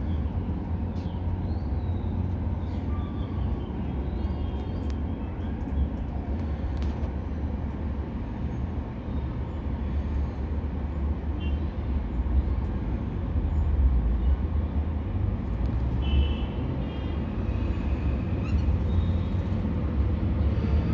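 Steady low background rumble, with a few faint, short high-pitched tones over it.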